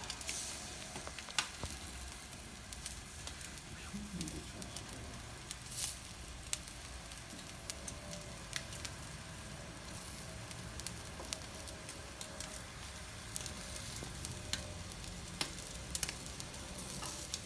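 Chicken yakitori skewers sizzling over glowing charcoal in a commercial charcoal grill: a steady hiss with scattered sharp pops and crackles.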